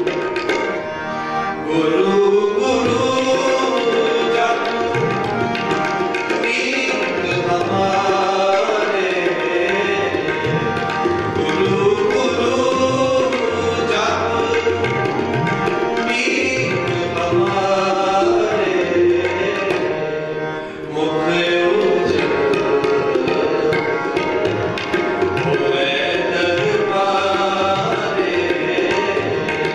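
Sikh kirtan: tabla drumming and harmonium accompany a male voice singing a Gurbani shabad in a steady devotional rhythm.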